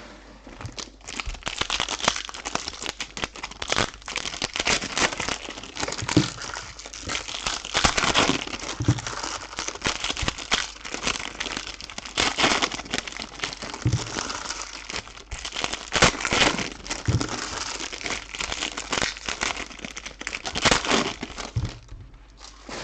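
Trading-card pack wrappers crinkling and rustling as packs are opened and the cards handled, in a dense, irregular stream of crackles that stops shortly before the end.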